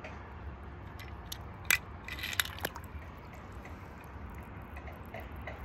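A small die-cast toy car dropped into pool water: a short sharp plop about a second and a half in, then a few smaller splashy ticks, over a steady low rumble.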